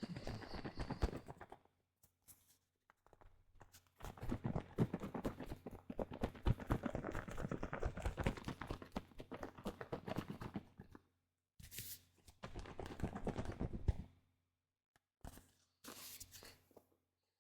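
Foamy liquid under pressure in a container, worked close to the microphone, giving a dense crackling fizz in several stretches. The longest stretch lasts about seven seconds, and the others are shorter with silent gaps between them.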